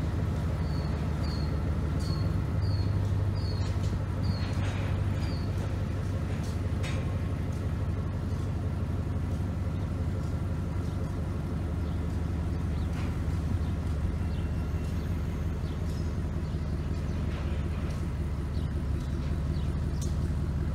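Diesel locomotive engines running steadily as the locomotives and a string of covered hopper cars move slowly. A run of short high chirps repeats about twice a second in the first few seconds.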